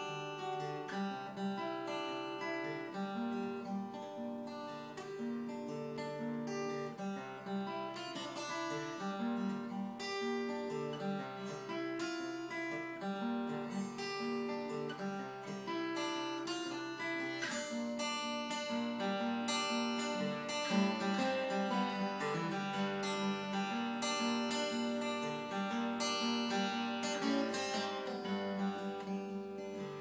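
Solo acoustic guitar played fingerstyle: a folk tune with low bass notes under a picked melody, played steadily without a break.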